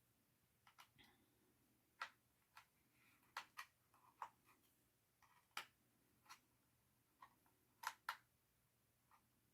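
Faint, scattered clicks and taps of a tiny screwdriver against hard plastic as a stubborn screw on a toy remote control's battery cover is worked loose, with the sharpest pair of clicks near the end.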